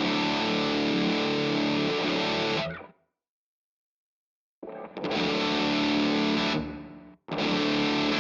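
Distorted electric guitar played through a Keeley D&M Drive overdrive pedal. A chord rings for nearly three seconds and is cut off sharply. After a short silence, a second held chord sounds, and a third comes in near the end.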